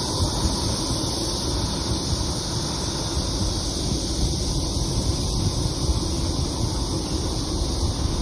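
Wind rushing over the microphone of a phone carried on a moving bicycle: a steady, rumbling hiss, mixed with road noise.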